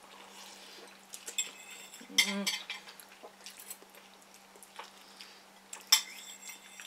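Cutlery clinking and scraping against a bowl as noodles are stirred and eaten, in a few scattered sharp clicks, the loudest near the end. A brief voice sound comes about two seconds in.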